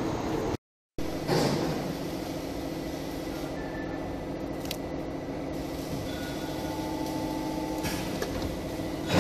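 Electro-hydraulic servo press brake running: a steady hum of its hydraulic pump and motor, with a few steady tones in it. The sound cuts out completely for a moment just under a second in, and there is a light click a little before the middle.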